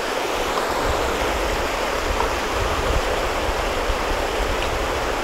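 Klamath River running fast over a rocky riffle: a steady, even rush of water.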